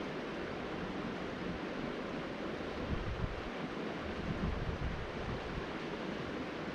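Steady rush of flowing creek water, with gusts of wind buffeting the microphone about three seconds in and again a little later.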